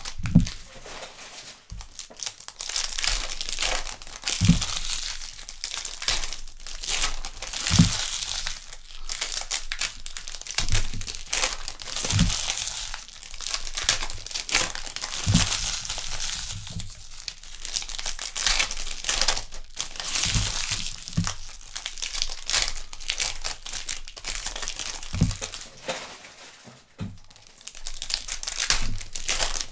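Trading-card pack wrappers from 2021 Donruss Baseball hobby packs crinkling and tearing as packs are ripped open, with dull thumps every few seconds.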